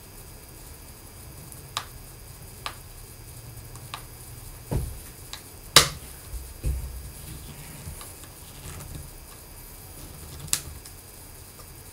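Scattered small clicks and taps of a screwdriver and screws being worked into an opened MacBook Pro while the battery is screwed back in. There are a couple of dull thumps around the middle, and the loudest, sharpest click comes about six seconds in.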